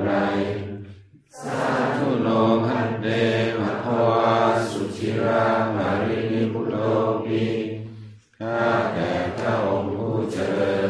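Theravada Buddhist morning chanting: a group chanting in unison on a steady, level pitch, pausing briefly for breath about a second in and again about eight seconds in.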